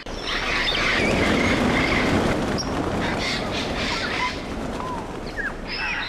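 A flock of grey parrots flushing off the ground all at once: a sudden, loud rush of many wingbeats that eases off over the last couple of seconds, with a few short whistled calls over it.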